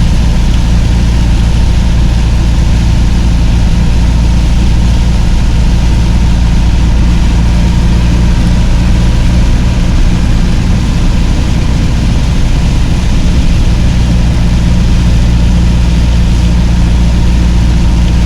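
Vehicle engine running steadily at cruising speed, heard from inside the cab, with a steady hiss of tyres on the wet road and rain.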